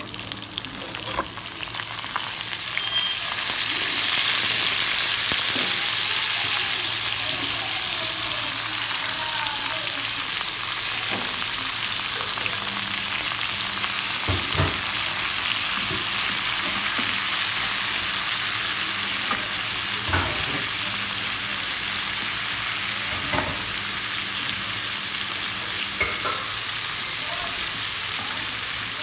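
Vegetables sizzling in hot oil in a frying pan as they are stir-fried with a wooden spatula. The sizzle swells over the first few seconds as the carrots, peppers and mushrooms go in, then holds steady, with a few short knocks of the spatula against the pan.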